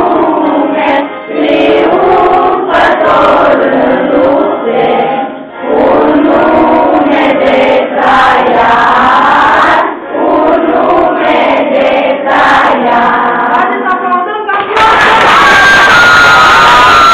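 A group of children singing together in unison, in phrases with short breaths between them, with some clapping along. About 15 seconds in it cuts abruptly to a loud, even hissing noise.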